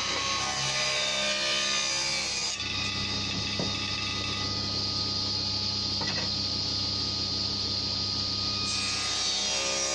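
Table saw running and ripping thin strips of tulipwood along the fence, with a steady motor hum under the cutting noise.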